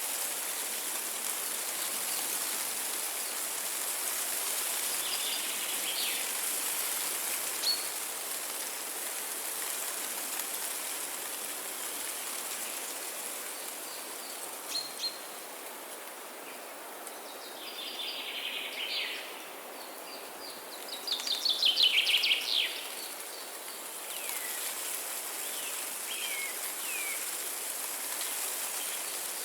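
Songbirds calling in a forest over a steady background hiss. The loudest is a quick run of high notes about two-thirds of the way through, with a few short down-slurred chirps after it.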